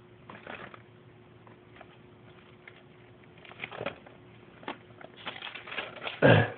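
Scattered rustling and clicking handling noises, with one louder thump near the end, over a faint steady hum.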